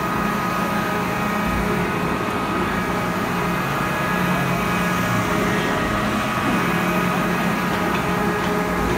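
Steady machinery hum: a continuous low drone that wavers slightly in pitch, with a few faint high steady tones over a noisy haze.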